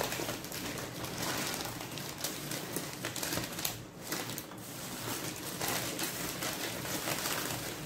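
Paper sandwich wrappers crinkling and rustling as two Subway sandwiches are unwrapped by hand: a steady run of small crackles that eases briefly about four seconds in.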